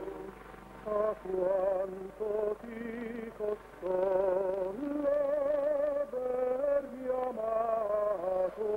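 Background music: a slow melody sung with vibrato, the notes held and changing pitch about once a second.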